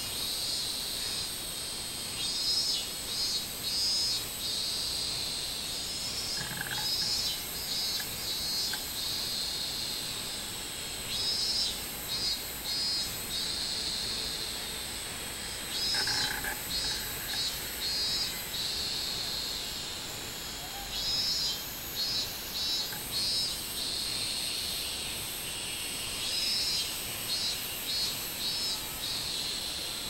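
Minmin-zemi cicadas (Hyalessa maculaticollis) in the tree singing their repeated pulsing 'min-min-min' phrases. Each phrase lasts a second or two and comes back every few seconds, over a steady high-pitched insect drone.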